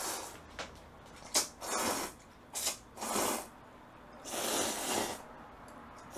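A person slurping hot jjamppong noodles: a series of short, noisy slurps with a longer one near the end.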